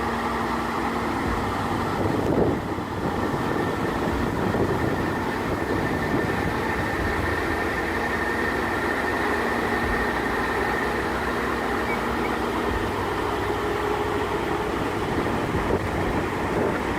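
Heavy machinery running steadily, a constant mechanical din with a brief louder swell a little over two seconds in.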